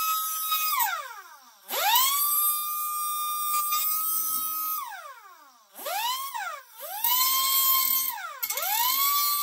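Mini pneumatic die grinder with a cutoff wheel whining at high speed in repeated short bursts: each time the whine climbs fast, holds steady for one to three seconds, then winds down, about five times. A grinding hiss comes through as the wheel cuts into an empty gas tank, throwing sparks.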